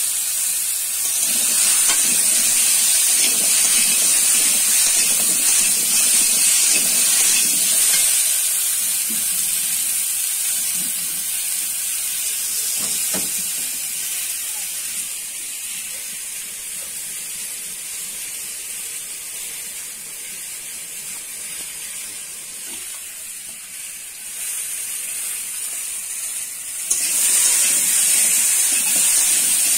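Potato chunks frying in oil in a metal wok, with a steady high sizzle. The sizzle drops lower through the middle and comes back loud suddenly near the end.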